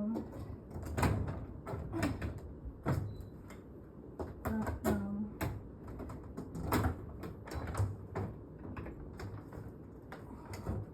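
Irregular knocks, clunks and rattles from a window unit and its brackets being pushed and shifted in a window frame, about one knock a second.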